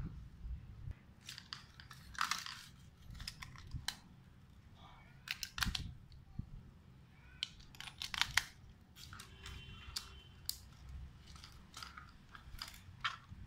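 Irregular plastic clicks, knocks and short scrapes of a toy RC car's plastic chassis and body shell being handled and turned over by hand.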